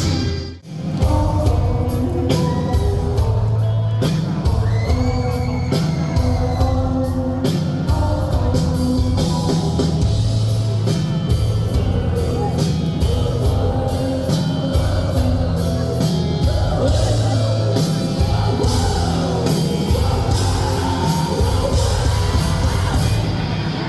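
Live rock band playing amplified: electric guitars, drums and a singer. The sound drops out briefly about half a second in, then the music carries on.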